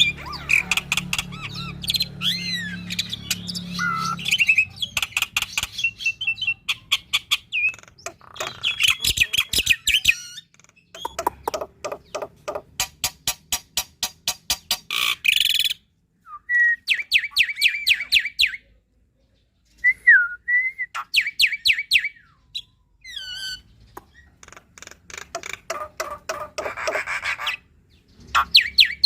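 Black-winged starling (jalak putih) singing a busy, varied song: fast chattering runs of clicks, short whistled slurs and harsh squawks, with a few brief pauses.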